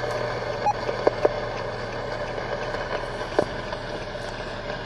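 Steady hum of a vehicle running, with a few short clicks and knocks.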